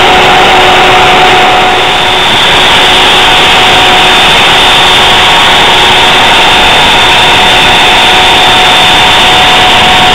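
Router spindle of a homebuilt 3-axis CNC machine running at speed with a loud, steady high whine while its bit carves MDF.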